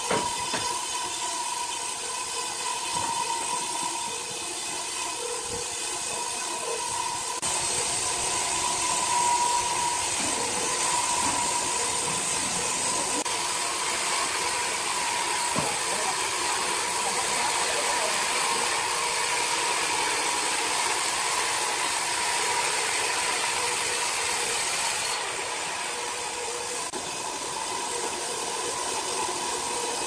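Horizontal band sawmill running: a steady whine on one pitch over a hiss of machine noise, with an occasional knock. The noise changes abruptly twice.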